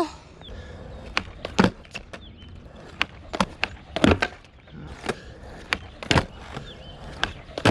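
Skateboard on concrete: a run of sharp wooden clacks from the board's tail popping and the deck and wheels hitting the ground, over a low rolling noise, as the skater tries a backside flip and nearly lands it.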